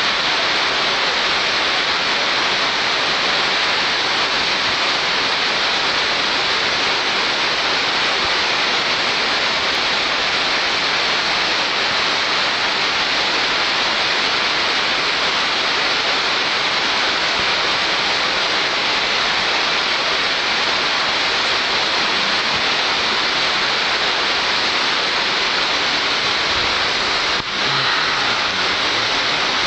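Heavy downpour: rain falling in a steady, dense hiss.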